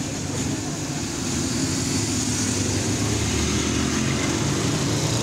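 Several motorcycle engines running as a line of classic racing motorcycles rides slowly by in the pit lane, one after another, blending into a steady mix.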